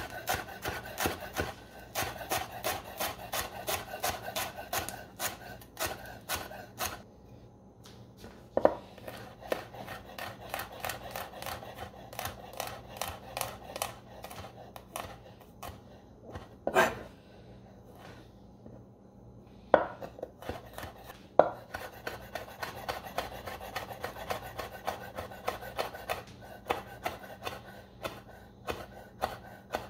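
Chef's knife chopping on a wooden cutting board, in quick even strokes of about four a second, through fresh herbs, then sliced garlic cloves and a chilli pepper. A few louder single knocks of the blade fall in the middle.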